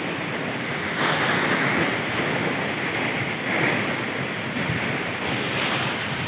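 Steady rushing roar of a waterfall, an even wash of water noise with no breaks.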